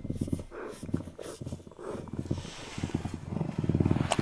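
Lynx growling: a low, rasping, rapidly pulsed sound in uneven bouts.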